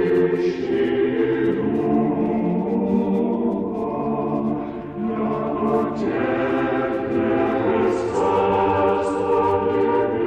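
Church choir singing slow, sustained a cappella chant, its chords shifting every second or two.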